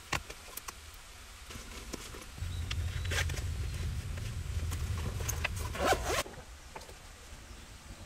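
Zipper of a fabric cable-storage pouch being drawn for several seconds, cutting off suddenly about six seconds in, with light clicks of cables and plugs being handled before it.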